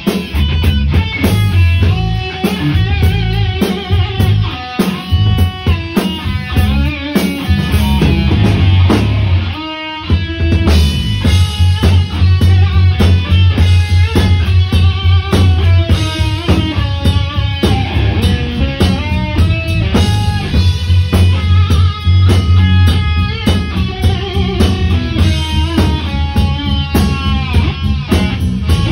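Instrumental rock band playing live: an Ibanez JEM electric guitar takes the lead melody, with bends and vibrato, over electric bass and drum kit. The band drops out briefly about ten seconds in.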